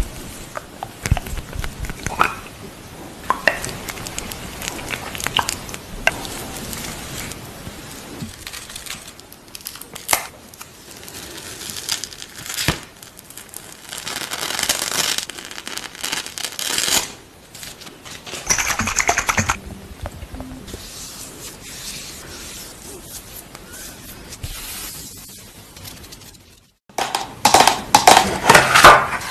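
Close-up handling sounds of skincare products: scraping, peeling and crinkling of a gold face mask and its packaging, with scattered clicks. Near the end, after a brief silence, louder crinkling as a box of sheet masks is handled.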